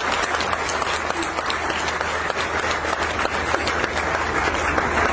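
Audience applauding: many hands clapping steadily, over a low electrical hum.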